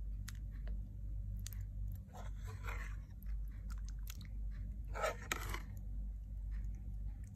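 Metal spoon stirring and scooping through a thick stew in a pan: scattered small clicks against the pan, with two longer scraping sounds about two and five seconds in, over a steady low hum.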